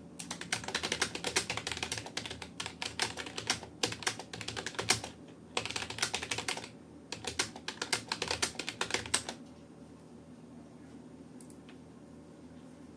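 Fast touch typing on a Rapoo computer keyboard: a rapid stream of key clicks with a couple of short pauses. The typing stops about nine seconds in, leaving only low background noise.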